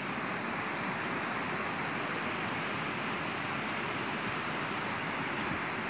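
Steady rushing of a fast river running over its stony bed, an even hiss with no breaks.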